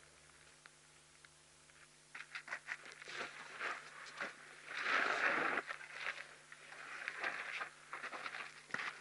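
Two African elephants sparring: tusks knocking and clacking against each other, with scraping and rustling of trunks, hide and feet on the ground. It starts about two seconds in, with a louder rushing scrape a few seconds later.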